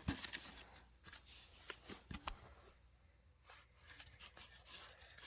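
Faint handling sounds as a fiberglass mortar tube is taken out of its packaging: light rustling with a few small taps and clicks.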